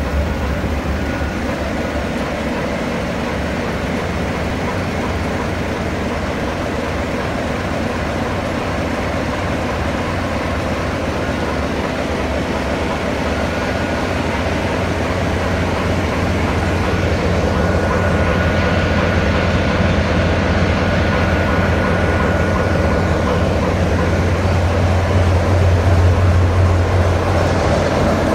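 Class 33 diesel locomotive's Sulzer eight-cylinder engine running, heard from inside the cab: a steady low drone that grows gradually louder over the second half.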